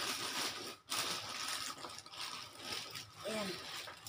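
Plastic packaging rustling and crinkling in uneven bursts as a sewing machine is handled and lifted out of its plastic wrapping. The noise breaks off briefly a little under a second in.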